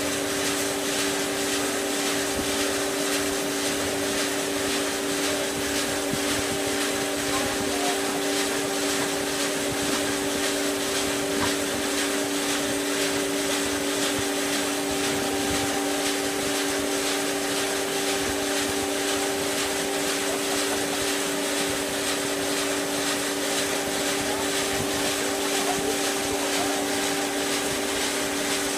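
Large block band saw for logs running free, not yet cutting: a steady machine hum with two steady low tones over an even whir.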